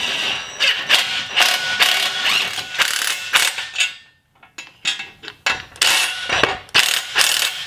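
Ratchet with a 15 mm deep socket clicking rapidly as it runs nuts onto winch-plate carriage bolts. The clicking comes in runs, with a short pause about four seconds in.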